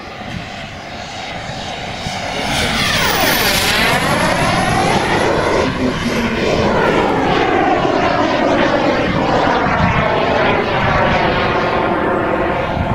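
Turbine engines of a giant-scale RC Tornado model jet making a fast pass: a rushing jet roar that swells about two seconds in, with a sweeping, phasing tone and a high whine that slides down in pitch as it goes by.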